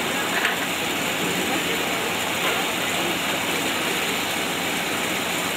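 Steady rushing noise of large electric fans running, with faint voices of people talking underneath.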